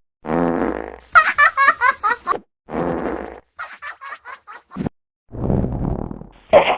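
Cartoon fart sound effect, each one followed by a quick run of giggling, heard in three edited variations in a row. The second variation is pitched much higher, and the third fart is lower and rougher.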